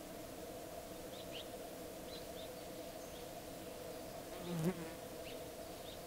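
A flying insect buzzes loudly and briefly past the microphone about four and a half seconds in. Behind it runs a steady low outdoor hum with faint, short high chirps.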